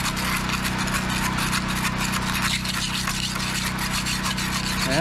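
Barnacles being scraped off a boat's propeller: a continuous run of quick, irregular rasping scrape strokes.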